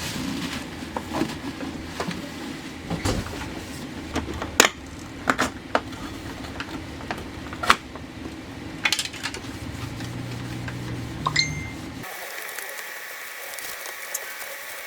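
Small hard objects clicking and clinking as they are handled and set down, over a steady low hum. Near the end the hum cuts out, leaving a thin hiss.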